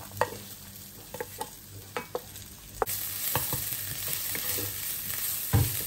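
Grated ginger and garlic scraped off a plate with a wooden spatula into hot oil in a ceramic frying pan: a few light taps and scrapes, then sizzling from about three seconds in while it is stirred, with one thump near the end.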